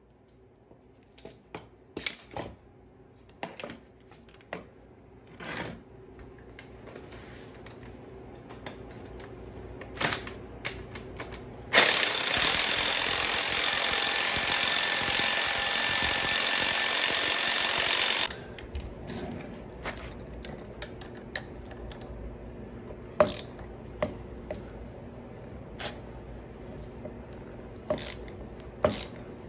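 Steel tools knocking and clinking against a strut assembly on a concrete floor. About twelve seconds in, an impact wrench hammers without a break for about six seconds and cuts off suddenly, the loudest sound here; scattered tool clanks follow.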